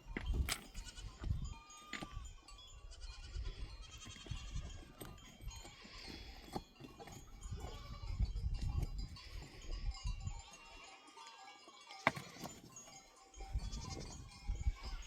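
Goats bleating off and on, over a low rumble, with a couple of sharp knocks, one about half a second in and one about twelve seconds in.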